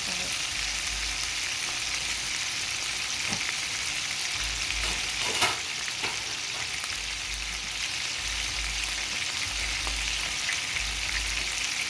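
Swai fish frying in hot oil: a steady sizzle, with one sharp click about five and a half seconds in.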